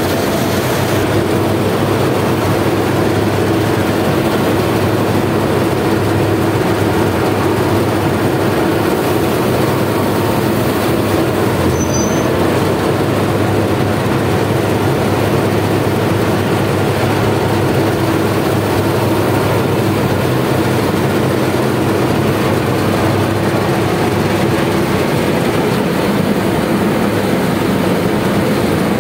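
Combine harvester running under load while cutting a dry crop: a loud, steady drone of engine and threshing machinery with a constant low hum.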